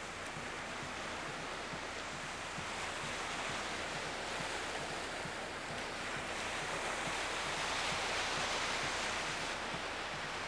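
Ocean surf washing onto a sandy beach: a steady rush of breaking waves that swells a little after the middle.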